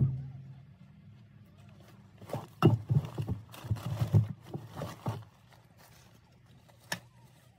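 Bags and gear being handled in an open car trunk right by the microphone: a run of irregular knocks and thumps for about three seconds, then a single click near the end.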